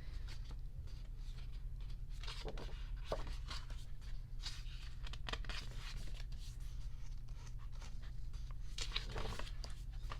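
Pages of a large photobook being turned and handled: soft paper rustles and swishes at irregular moments, over a steady low hum.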